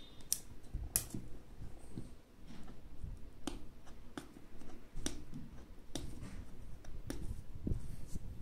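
Scissors snipping the tape seal on a cardboard graphics card box, with the box being handled: a string of sharp, irregular clicks and taps over soft rubbing and bumping.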